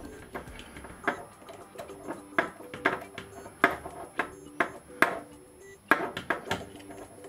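Irregular sharp clicks and taps, about a dozen in all, as steel needle-nose pliers work against the plastic body and small parts of a DJI Mavic Air 2 drone.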